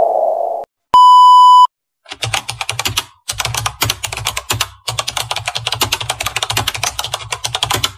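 A short electronic beep, then fast keyboard typing clicks in three quick runs, a typing sound effect as a caption types itself out. The tail of music fades out at the very start.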